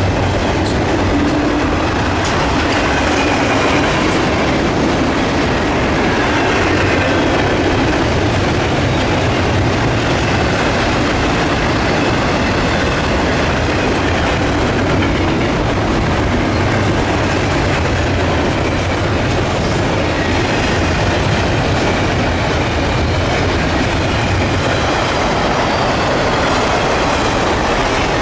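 A freight train's cars rolling past close by: a loud, steady rumble and clatter of steel wheels on the rails that never lets up.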